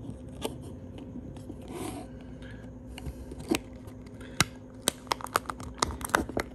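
Small plastic clicks and snaps from a car key remote's shell being pressed back together over its circuit board: a few single clicks, then a quick run of clicks near the end.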